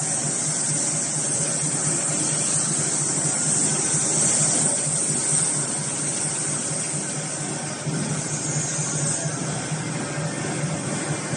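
Chain-link fence-making machinery running steadily: a low hum under a strong high hiss, without pauses or distinct knocks.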